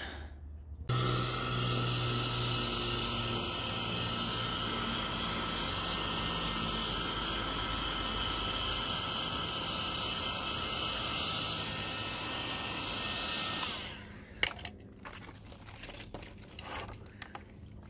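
Wagner heat gun's fan and element blowing steadily, a whirring hiss with a faint whine, switched on about a second in and off about four seconds before the end. It is heating old vinyl wrap to soften it, and after it stops the brittle vinyl crinkles and crackles as it is peeled back by hand.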